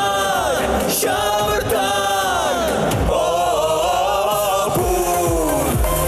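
Two male singers singing a pop song into microphones over a backing track with a drum beat.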